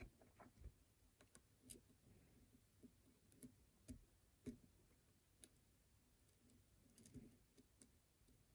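Faint, irregular clicks and ticks of a lock pick and tension wrench working the pins of a pin-tumbler lock, with a small cluster of clicks about seven seconds in.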